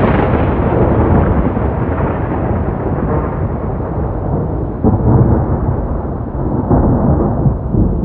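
Rolling thunder just after a loud crack, rumbling on and slowly dying away, with fresh swells of rumble about five and seven seconds in.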